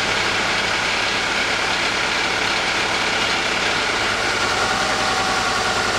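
Honda Accord engine idling steadily as the air conditioning is switched off; about four seconds in the running sound changes as the AC and its cooling fans shut down, taking away the rattle of a failing radiator cooling fan.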